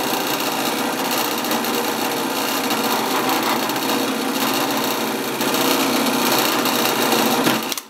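Drill press running, its small twist bit boring into a block of high-density polyethylene. The motor noise is steady, gets louder for the last couple of seconds as the bit cuts in, then cuts off suddenly.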